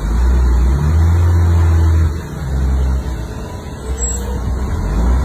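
A bus's engine running with a low rumble as the bus, rebuilt with an airliner-style nose, drives slowly past.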